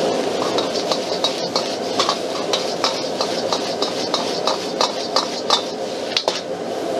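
Metal ladle clanking and scraping against a wok as fried rice is stirred and tossed, about two to three strikes a second, over the steady rush and sizzle of a high-powered gas wok burner.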